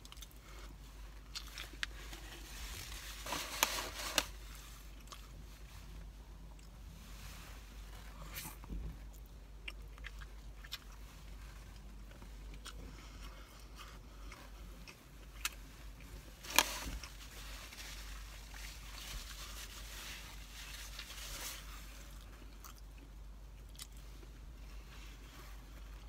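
A person biting into and chewing a slice of pizza close to the microphone, quiet mouth sounds with scattered clicks. There are louder bites around three to four seconds in and again about halfway through.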